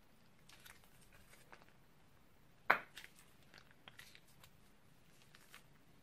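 Plastic piping bag crinkling as it is squeezed to pipe slime, a scatter of faint ticks and crackles with one louder sharp crackle a little before the middle.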